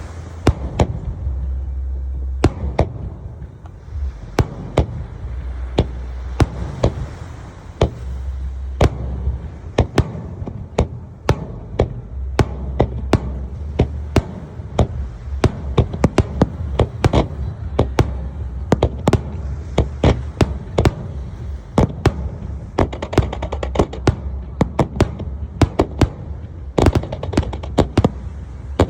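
Aerial fireworks bursting in quick, irregular succession, a long run of sharp bangs that comes thickest in volleys about a third of the way in and again toward the end, over a steady low rumble.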